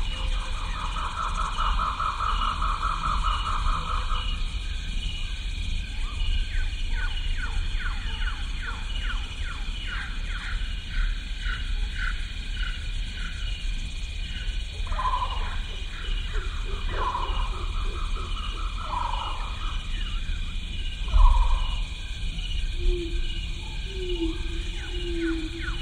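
Animal sound bed: a steady, regular high chirping under several groups of pitched bird or animal calls, over a low rumble, with a brief low thump about three quarters through.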